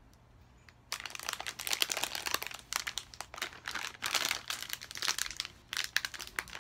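Plastic snack bag crinkling and rustling as hands work at it to get it open, starting about a second in after a brief quiet.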